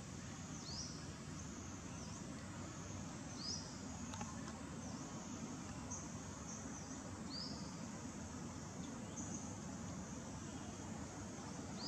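Faint outdoor ambience: a steady low background hiss with short high-pitched chirps every few seconds.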